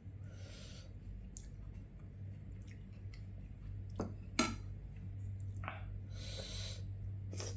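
Eating sounds at a plate of curry and rice: chewing, food being handled on the plate, and a few small clicks and taps, the sharpest about four and a half seconds in.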